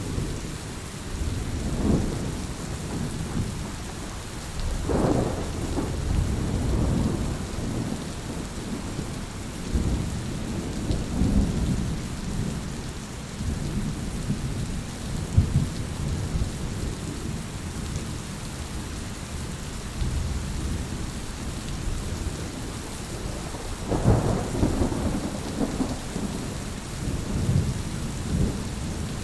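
Steady rain falling, with thunder rumbling low beneath it. The rumbles swell louder about five seconds in and again in the later part.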